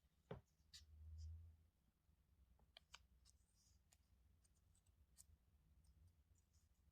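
Near silence with a few faint clicks and taps of small plastic toy pieces being handled.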